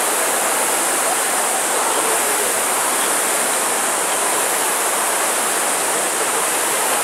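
Steady rushing whoosh of many Concept2 rowing ergometers' air-braked flywheels spinning as a row of rowers pull at once, their strokes blending into one continuous noise.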